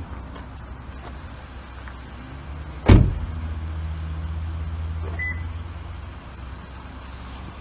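A Toyota minivan's door slams shut once about three seconds in, followed by a steady low hum that fades over a few seconds and a brief high beep about five seconds in.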